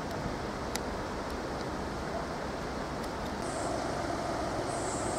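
Southeastern Class 377 electric multiple unit approaching, its running sound growing louder over a steady background rumble from about three and a half seconds in, with brief high squeals near the end.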